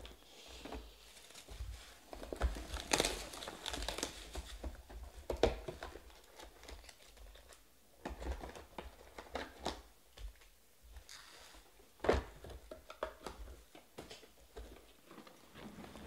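Foil-wrapped Panini Prizm Draft Picks football card packs crinkling and rustling as they are pulled from their cardboard boxes and stacked, with irregular sharper taps and clicks.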